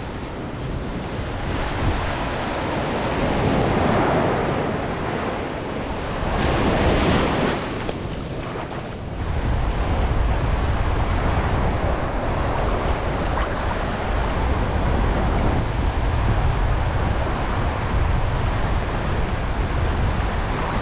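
Small surf waves washing onto a sandy beach, swelling twice in the first several seconds. From about ten seconds in, a steady low rumble of wind buffeting the microphone takes over.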